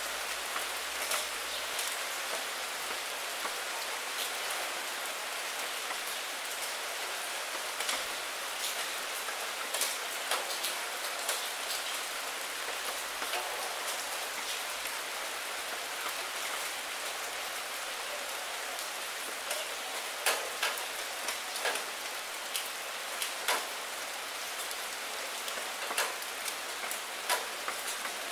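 Steady rain falling on puddle water and wet fallen leaves: an even hiss with individual drops landing sharply all through, more of them and louder in the last several seconds.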